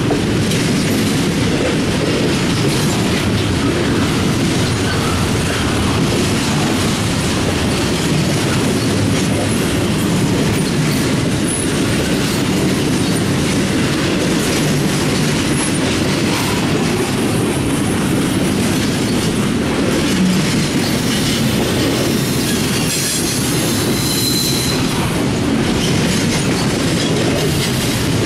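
Double-stack intermodal well cars of a CSX freight train rolling past: a steady, loud rumble and rattle of steel wheels on rail.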